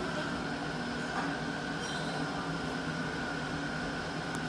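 Steady mechanical hum and rumble inside a closed lift car, with a constant mid-pitched tone over a low drone, sped up to double speed.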